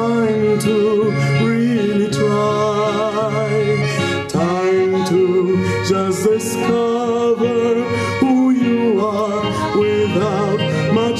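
Live band music: a piano accordion plays the melody over acoustic guitar accompaniment, in an instrumental passage between sung lines.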